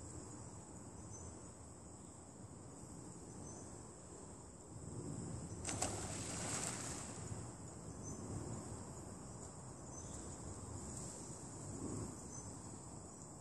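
A steady, high-pitched insect chorus. About six seconds in, a louder rush of noise lasts a second or so.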